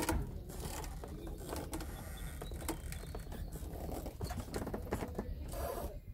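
Outdoor ambience with a steady low wind rumble on the microphone and scattered light knocks from handling. A pigeon coos faintly near the end.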